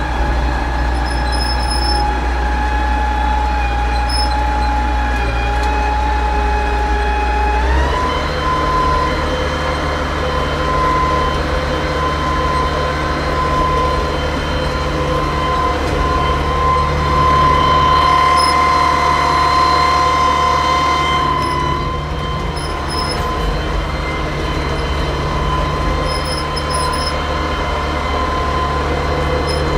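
Yanmar CT-65 track tractor running and travelling, heard from inside its cab: a steady engine hum under a high whine from the running gear. About eight seconds in, the engine and the whine both step up slightly in pitch and hold there.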